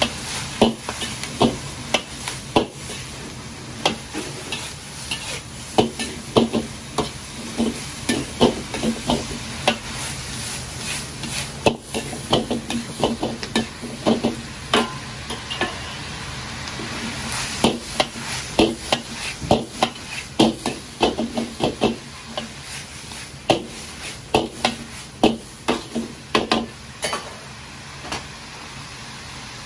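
Metal ladle scraping and knocking irregularly against a carbon-steel wok while stir-frying a big batch of shredded vegetables, over the steady sizzle of frying. The knocks stop near the end, leaving only the sizzle.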